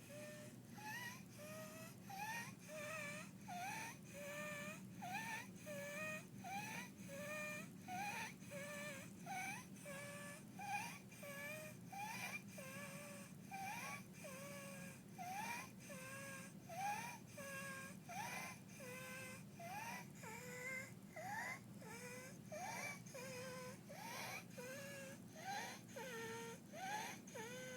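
A toddler with croup breathing fast with inspiratory stridor: a high-pitched squeak that rises in pitch on every breath in, a little under one breath a second. It is the sign of a voice box and windpipe narrowed by croup inflammation, and of laboured breathing.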